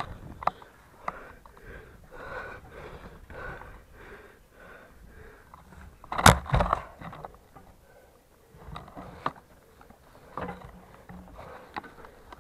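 A dog panting in quick, regular puffs, with one sharp, loud knock about six seconds in.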